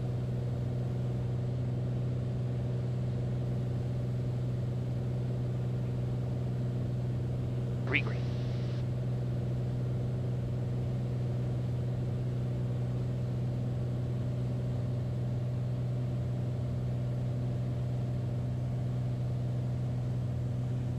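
Beechcraft Bonanza's piston engine and propeller droning steadily on final approach, with no change in power. A short rising chirp sounds once, about eight seconds in.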